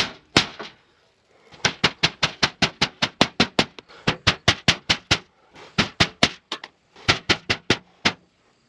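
Hammer blows struck in quick runs of about five a second, broken by short pauses.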